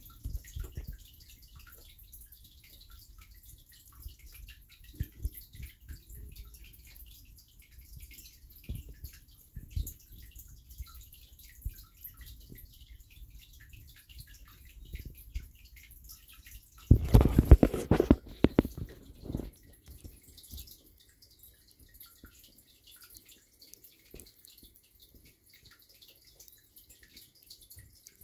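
Giant land snail rasping at a carrot: a steady run of tiny wet clicks and crackles. Past the middle a louder rustling burst of about two seconds covers it.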